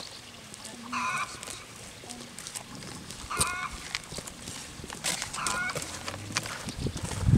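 A farmyard bird calling three times, short calls about two seconds apart, over light footsteps on a brick path. A loud low thump comes near the end.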